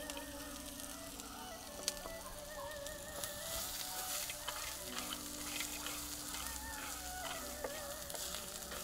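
Spring onion stalks and fried chicken pieces sizzling in oil in a clay pot, stirred with a wooden spatula, with a few light knocks against the pot.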